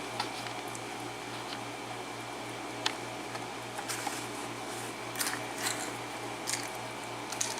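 Scattered light metallic clicks of a brass padlock and its small steel tools being handled, about six in all, over a steady electrical hum.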